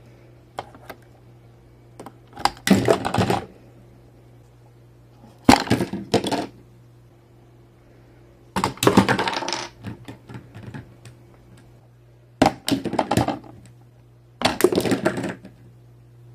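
Hard plastic toy pieces clattering in five short bursts: the Angry Birds slingshot launcher firing bird figures into K'NEX brick towers, and the figures and pieces knocking and rattling on a hard tabletop.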